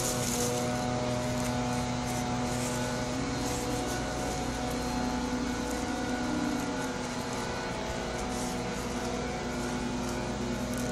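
A steady motor drone with a low hum, its pitch rising slightly a few seconds in and then settling back.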